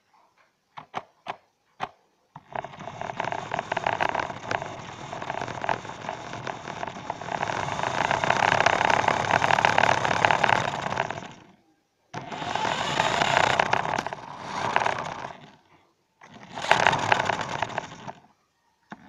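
Remote-control car running over tiles, heard from a camera mounted on the car: a rattling, scraping drive noise in three runs, each ending in a short stop, after a few clicks at the start.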